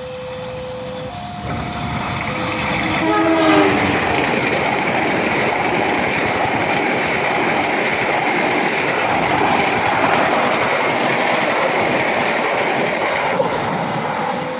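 A train passing at speed, its loud rush of wheel and running noise building over the first few seconds and easing off near the end. A short horn blast sounds about three seconds in, dropping in pitch as it goes by. Early on, a two-tone electronic warning signal alternates between a lower and a higher steady note.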